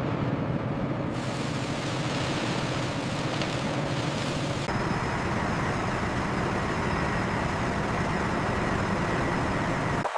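Steady mechanical rumble with a hiss over it, like running heavy machinery. The sound grows brighter about a second in, and a faint high whine joins it a little before halfway.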